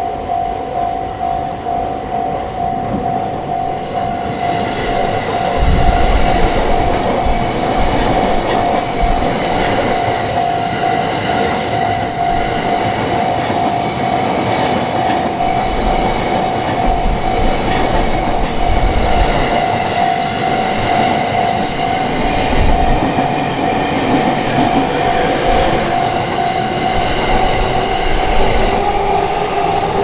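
Japanese level-crossing warning bell ringing steadily while a long orange-and-green-striped commuter train passes over the crossing. The train runs in about five seconds in, its wheels clattering over the rail joints with low thuds now and then.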